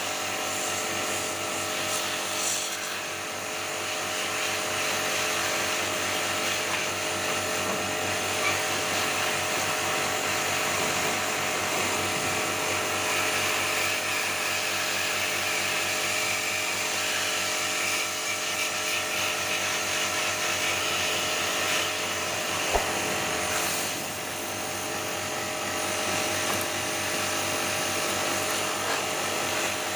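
A small electric motor running steadily, its even hum held under a constant hiss, with one sharp click about three-quarters of the way through.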